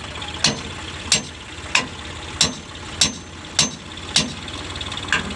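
Metal being struck with a hammer at an even pace, about eight or nine blows, each roughly two-thirds of a second apart, at the front of an overturned tractor. A diesel engine idles underneath.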